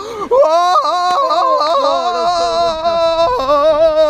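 A voice singing wordlessly in high, long held notes that waver and step between pitches, yodel-like.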